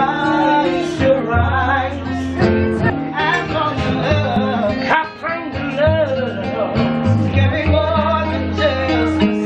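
Music with a singing voice and guitar over a sustained bass line.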